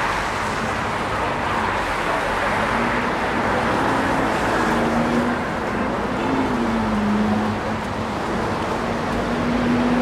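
Steady city street traffic noise, with a low hum that dips in pitch past the middle and rises again near the end.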